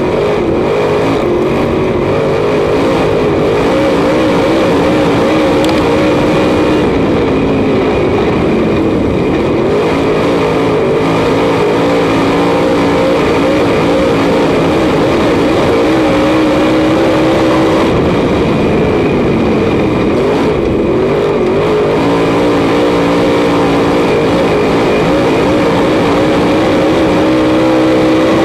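Dirt late model race car's V8 engine at racing speed, heard from inside the cockpit. The engine note climbs and then drops every several seconds as the driver comes off and back on the throttle around the track.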